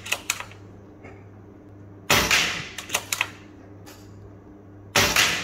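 Diana Mauser K98 pre-charged pneumatic air rifle firing two sharp shots about three seconds apart, the second near the end. A few quick clicks from the bolt being worked follow the first shot, and come again near the start.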